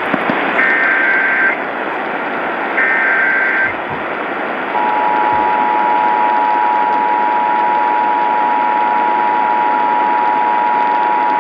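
Emergency Alert System broadcast heard over radio: two bursts of SAME digital header data, each a buzzy warbling burst about a second long, then about five seconds in the steady two-tone EAS attention signal starts and holds, all over radio hiss. The header and attention tone mark the start of a Required Monthly Test.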